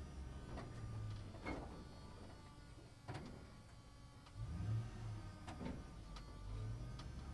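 Truck driving inside a parking structure: a low engine rumble that swells and fades, with several sharp knocks and rattles scattered through it.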